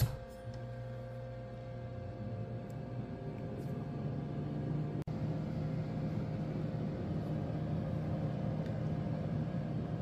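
Comfee air fryer toaster oven running in convection dehydrate mode: a steady motor hum and whir from its convection fan, after a brief clack at the start as the glass door is shut.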